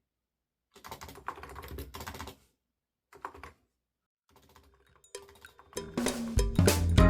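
Typing on a computer keyboard in short bursts of key clicks with pauses between them. Loud background music comes in near the end.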